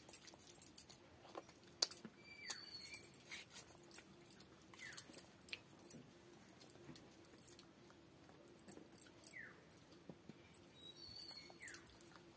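Eating by hand: fingers squishing rice and curry on a banana leaf, chewing and lip smacks, with scattered small clicks and the light clink of bangles.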